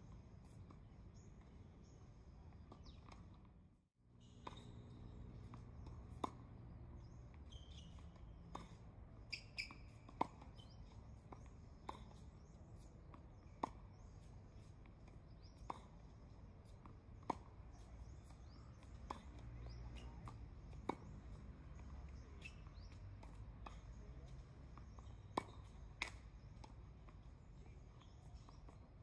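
Tennis ball being hit back and forth on a hard court: sharp pops of racket strikes and ball bounces every one to two seconds.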